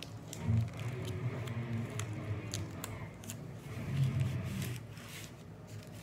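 Masking tape being pulled off the roll and pressed around aluminium foil on the neck of a plastic bottle: sticky crackling and crinkling with scattered sharp clicks and a couple of louder handling bumps, about half a second and four seconds in.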